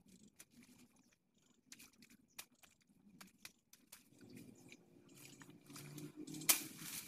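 Leaves and stems rustling and snapping as someone pushes through dense, wet undergrowth. From about halfway a low, steady rumble builds and grows louder, with one sharp snap near the end.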